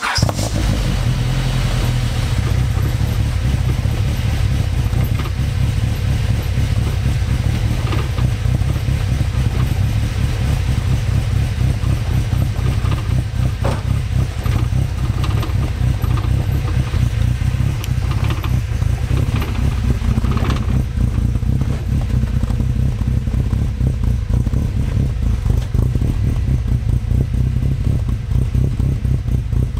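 Honda B20 VTEC four-cylinder engine idling steadily through a freshly built 2.5-inch exhaust with a Turbo Works silencer, heard at the tailpipe.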